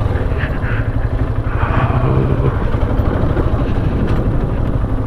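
Motorcycle engine running steadily while riding, its fast firing pulses heard as a continuous low rumble, with wind noise on the microphone.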